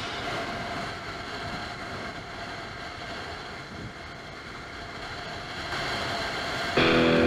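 Steady rushing wind and road noise on the camera microphone of a motorcycle riding at speed. Distorted electric guitar chords of the backing music come back near the end.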